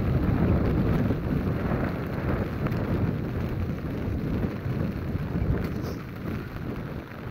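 Wind buffeting a phone's microphone outdoors in the rain: a low, rough rumble that swells and eases, with no distinct events.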